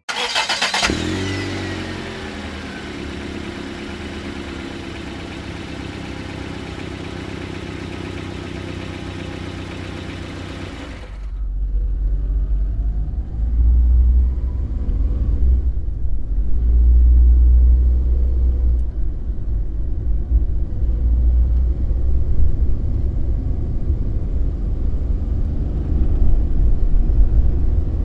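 A vehicle engine starts with a short falling whine and runs steadily for about ten seconds. About eleven seconds in the sound switches abruptly to a louder, deep rumble of the vehicle on the move, which lasts to the end.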